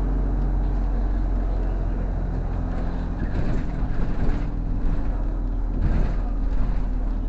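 City bus engine running with a steady low drone, heard from inside the cabin along with road noise. Several knocks and rattles come in the second half.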